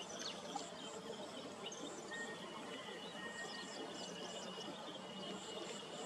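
Natural outdoor ambience: a steady background hiss with short, very high pulses repeating through it and scattered quick high chirps of insects and small birds. A thin, steady high whistle holds for about three seconds from the middle on.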